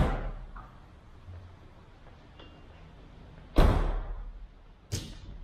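Car doors of the 2013 Honda CR-V being shut: a slam right at the start, then two more about a second and a half apart near the end, the first of that pair the loudest.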